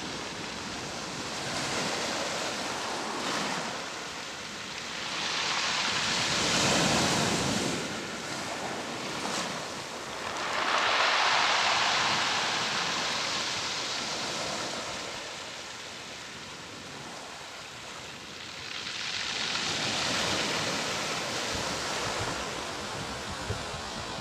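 Sea waves surging and washing in on the shore, swelling loud four times and ebbing between.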